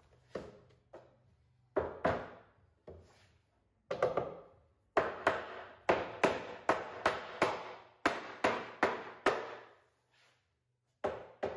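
Mallet knocking on the top rail of a tulip wood cabinet carcass. A few single knocks come first, then a quick run of about three blows a second that stops about ten seconds in, each knock ringing briefly in the hollow box.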